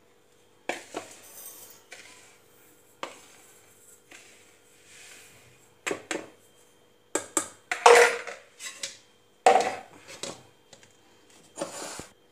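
A metal spoon scraping and knocking against a plastic bowl and a steel mixer-grinder jar in irregular bursts, as dry semolina mix is spooned and tipped into the jar; the busiest clatter comes past the middle, and the jar's lid is handled near the end.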